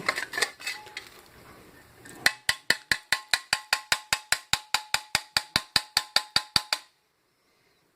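Faint handling noise, then a rapid, even mechanical clicking, about six clicks a second with a faint steady tone under it, that stops abruptly and is followed by dead silence.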